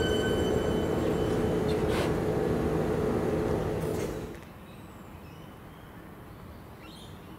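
Siemens electric multiple unit moving slowly at the platform, giving a steady hum with a clear whine. About four seconds in the sound drops away suddenly, leaving a faint steady background.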